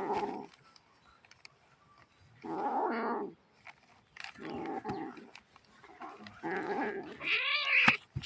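A cat growling in about four drawn-out bursts, each roughly a second long, ending with a higher yowl that rises and falls in pitch.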